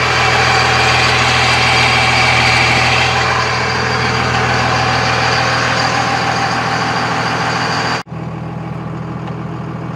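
Pickup truck engine idling steadily, heard close to its exhaust tip. About eight seconds in the sound cuts off abruptly and returns quieter.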